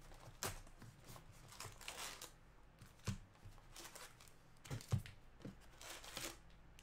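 Wrapped baseball card packs rustling and tapping as gloved hands pull them out of a cardboard hobby box and stack them, with scattered sharp taps, the loudest about five seconds in.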